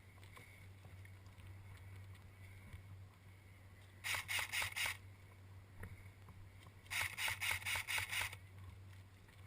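Airsoft gun firing two short strings of rapid shots, about six a second, each shot a sharp mechanical clack. The first string of about five shots comes about four seconds in; a longer one of about eight follows near seven seconds in.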